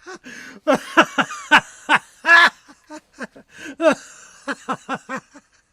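A person laughing in a run of short 'ha' bursts, which thin out and stop shortly before the end.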